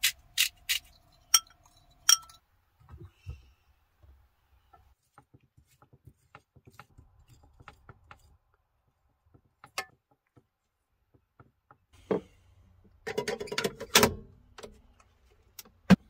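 A hand salt grinder being twisted, giving a few sharp ratcheting clicks in the first two seconds. Then faint light clinks of a spoon as seasoned oil is spooned onto corn cobs in an air fryer basket, and a louder burst of clattering around 13 seconds in as the basket goes back into the air fryer.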